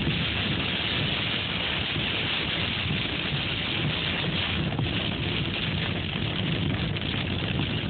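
Heavy storm downpour beating steadily on a car's roof and windshield, heard from inside the cabin, over the hiss of tyres on a flooded highway.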